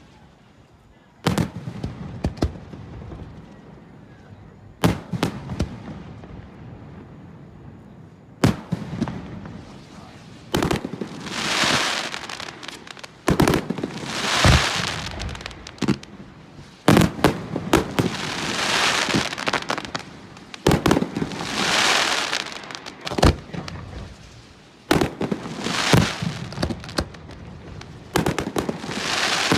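Aerial fireworks going off in a display. A few sharp single booms come first, a few seconds apart. Then a steady run of shells bursts every three to four seconds, each bang followed by a couple of seconds of dense crackling.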